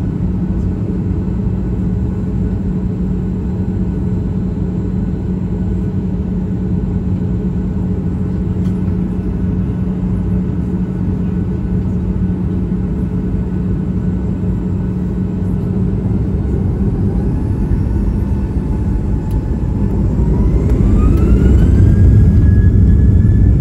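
Cabin noise inside a Boeing 737 MAX 8: a steady rumble with a low hum. About 20 seconds in, its CFM LEAP-1B turbofans spool up with a rising whine that levels off, and the rumble grows louder as thrust increases.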